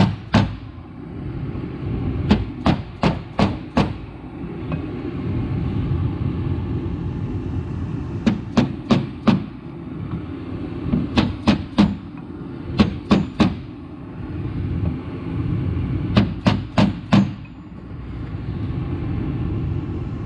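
Hammer blows on a steel drift held in a tractor's front planetary hub, in quick runs of four or five sharp metal strikes every few seconds. A steady low hum runs underneath.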